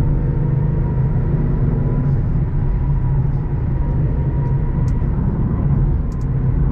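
Ford Mustang GT's 5.0-litre V8 running steadily under light load while the car drives along, a low even drone heard from inside the car.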